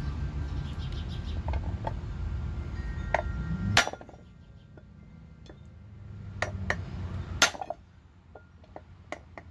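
Sharp metal-on-metal strikes from a steel rod being used to drive a bearing back down onto its shaft: a few clinks about six to seven and a half seconds in, the loudest near seven and a half seconds, and one more near the end. Before them, a low steady hum stops suddenly with a sharp hit about four seconds in.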